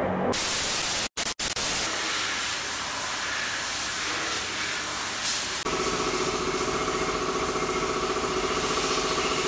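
Pressure washer spraying water on a motorcycle, a steady loud hiss; a little past halfway the washer's motor hum joins in as a steady tone under the spray.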